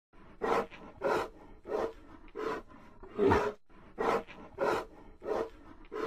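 A bear growling in a rapid series of short, rough bursts, eight of them, each under half a second. The fifth, about three seconds in, is the loudest and deepest.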